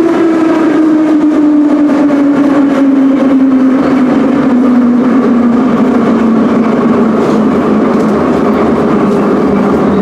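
Ezh3/Em-508T metro train heard on board: the whine of its traction motors and gears falls steadily in pitch as the train slows, over the rumble and clatter of wheels on rails.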